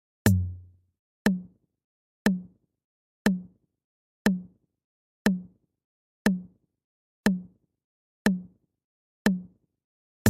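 Countdown timer's ticking sound effect: a sharp tick with a short low thud, about once a second, ten times. The first tick comes with a longer, deeper boom.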